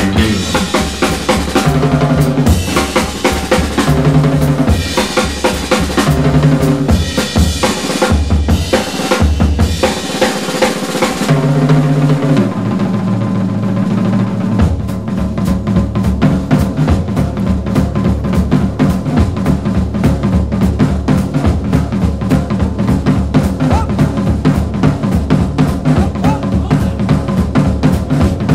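Background music with a driving drum-kit beat over a bass line; a little before halfway the upper parts drop away, leaving mostly fast, dense drumming.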